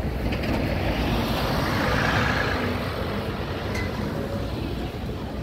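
Hybrid city bus passing close by. Its noise rises to a peak about two seconds in, then eases into the steady hum of street traffic.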